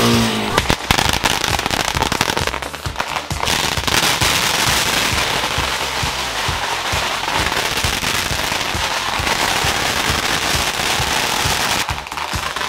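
Long strings of Chinese firecrackers going off: a dense, rapid, unbroken crackle of bangs that starts about half a second in and thins out near the end, too loud.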